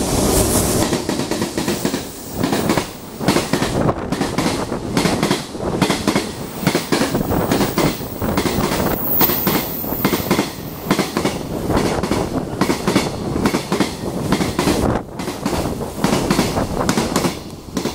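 Container freight train hauled by an EH200 electric locomotive passing at speed, its wheels clattering rhythmically over the rail joints. The clatter falls away near the end as the last wagon goes by.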